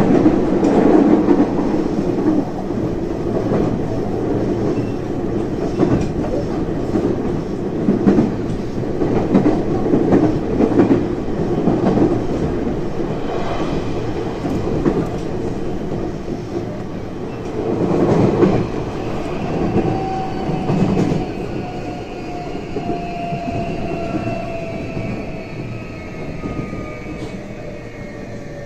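JR West 323 series electric train running, its wheels rumbling on the rails with occasional rail-joint clatter. From about two-thirds of the way in, the Mitsubishi full-SiC VVVF traction inverter gives a thin whine that slowly falls in pitch as the train slows.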